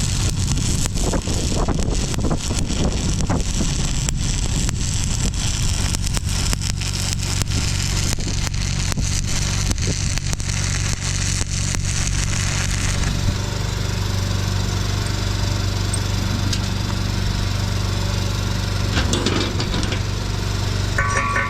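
Stick welding: the electrode arc crackles and sputters over the welding machine's steady hum. The crackle stops about two-thirds of the way through and the hum runs on.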